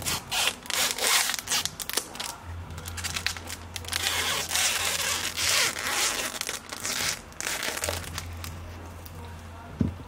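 Packaging rustling in irregular bursts as a screen is unwrapped and lifted out by hand, busiest in the middle stretch.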